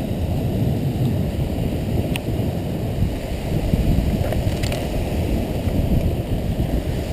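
Wind buffeting the microphone, a steady low rumble, with a few faint clicks.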